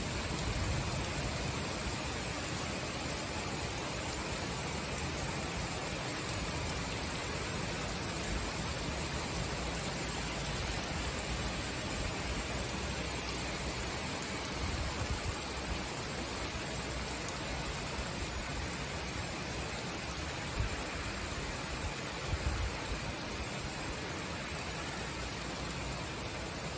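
Summer downpour: steady heavy rain falling, an even hiss.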